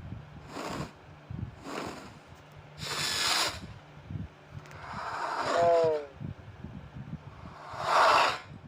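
A string of short, separate sound effects played one after another: five hissing, whoosh-like bursts about one to two seconds apart, the one just past the middle carrying a falling tone.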